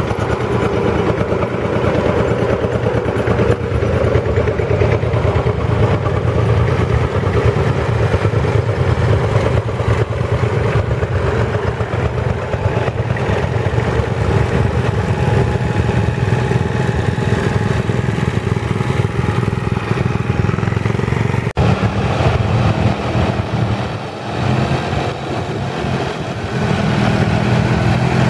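Engines of vintage farm tractors running as they drive past one after another, among them single-axle tractors pulling trailers. There is a sharp click about three-quarters of the way through, and the sound dips briefly before rising again as the next tractor comes up.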